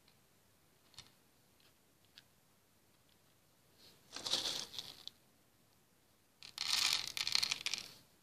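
A hand rummaging through loose plastic Hama beads, giving two rattling bursts of about a second each, around four and six and a half seconds in. A couple of faint light clicks come before them.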